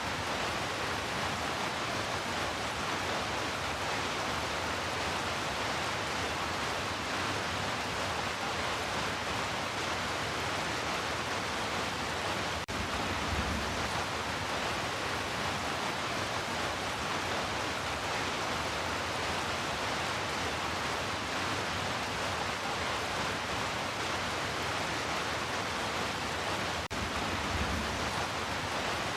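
Heavy rain falling steadily as an even, unbroken hiss, with a brief low swell about halfway through and again near the end.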